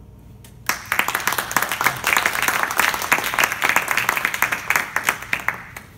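A small group applauding, starting suddenly about a second in and dying away near the end.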